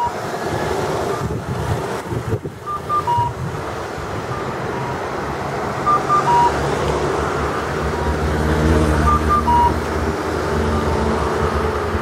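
Rikuun Denki audible pedestrian signal sounding the electronic cuckoo call, which means the walk light is green: two short high pips and a longer lower note, 'ka-kakkoo', about every three seconds, answered by a fainter 'kakkoo' in between. Passing road traffic rumbles underneath, swelling near the end.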